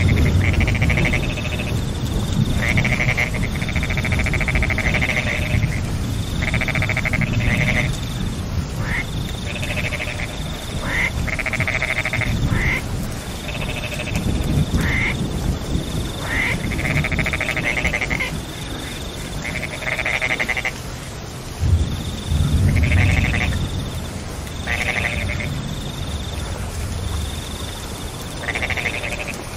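Frogs calling in a chorus during rain: repeated bursts of fast pulsed croaks, each a second or two long, with a short high note recurring about once a second, over a steady low rush of rain.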